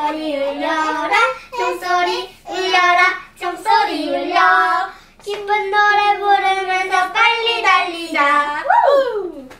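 A young girl singing a Christmas carol without accompaniment, in held notes with short breaks for breath; the last note slides down near the end.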